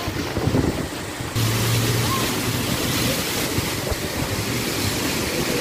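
Typhoon-force wind rushing in gusts with heavy rain and buffeting the microphone. About a second and a half in, the rush gets louder and brighter, and a low steady hum sounds for a couple of seconds.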